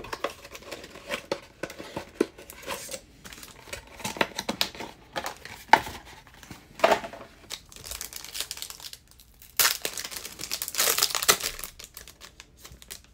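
Trading-card packaging handled and opened by hand: the Panini Select paper envelope torn open and the foil pack inside crinkling, in quick irregular crackles, with a busier spell of crinkling near the end.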